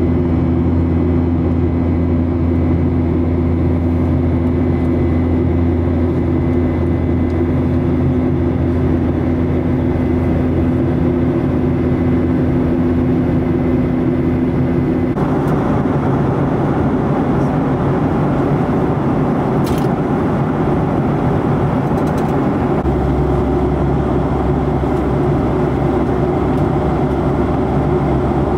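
Jet airliner cabin noise in flight: a steady rush of engine and airflow with a low hum under it. The noise changes abruptly in tone about halfway through.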